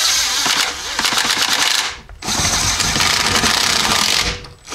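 Cordless impact driver hammering bolts into the NP231 transfer case's aluminium case in two bursts of about two seconds, with a short pause between them and a third burst starting at the very end.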